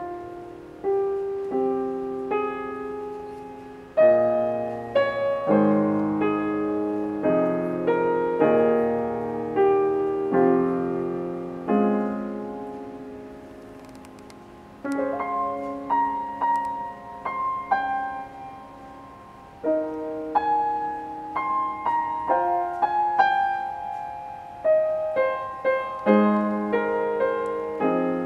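Yamaha grand piano played freely in an improvisation: phrases of chords and melody, with the notes twice left ringing and fading away, about twelve and eighteen seconds in, before the playing picks up again.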